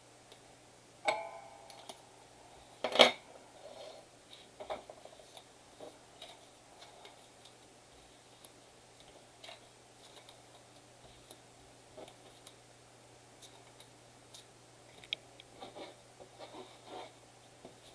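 Trading card packs and cards being handled on a table: scattered light clicks and rustles, with a sharp knock about a second in and a louder one about three seconds in.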